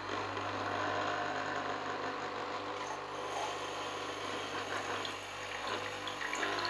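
Krups Nescafé Dolce Gusto capsule coffee maker's vibratory pump starting abruptly and buzzing steadily, with cold water streaming from the outlet into a ceramic mug. The pump is now delivering water after its clogged valve was cleaned: the no-water fault is fixed.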